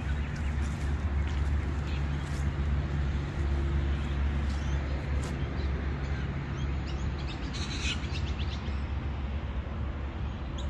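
Birds calling outdoors, with a cluster of crow-like cawing about eight seconds in, over a low steady rumble.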